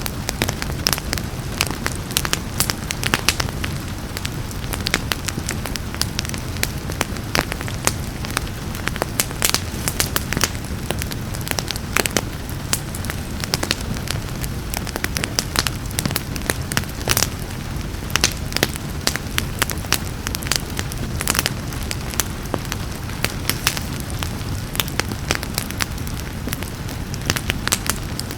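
Fireplace fire crackling, with frequent irregular sharp pops and snaps over a steady low rumble, mixed with a soft, even hiss of rain.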